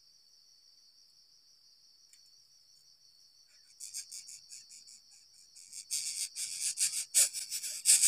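Steady, high-pitched insect drone, like crickets. About four seconds in, a coucal lands at its nest to feed the chick, and a quick run of scratchy, rasping sounds begins from the nest. It grows loudest over the last two seconds as the chick takes the food.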